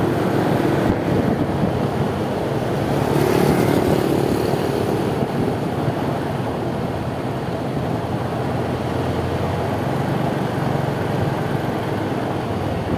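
Motorcycle on the move in slow traffic: engine running under wind and road noise on the handlebar-mounted microphone, with a humming engine note that grows louder about three to five seconds in.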